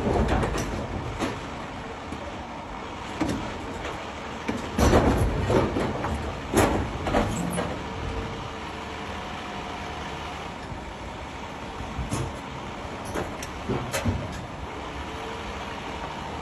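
Excavator running, with a steady machine noise and intermittent sharp clanks and knocks. The knocks are loudest in a cluster about five to seven seconds in, with more near the end.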